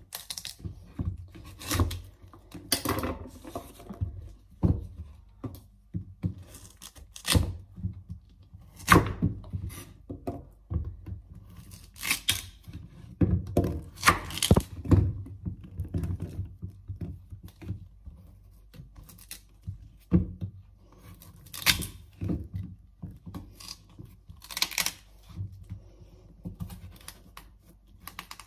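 Kitchen knife cutting through a whole raw cassava root on a wooden chopping board: irregular thunks of the blade hitting the board, with tearing and cracking as it goes through the tough skin and flesh.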